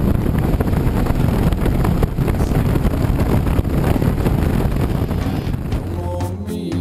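Engine and propeller of a light single-engine high-wing plane running hard during the takeoff roll, heard from inside the cabin with wind rushing over the microphone. Music fades in near the end.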